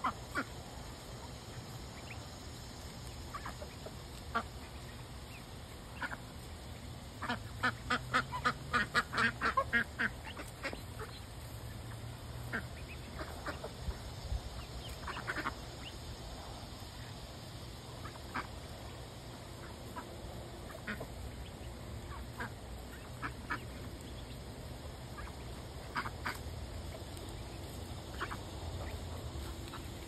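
Ducks quacking in short, separate calls, with a quick run of calls about eight to ten seconds in.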